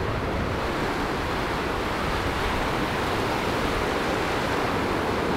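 Surf washing over a shallow beach: a steady rush of breaking waves and foaming water.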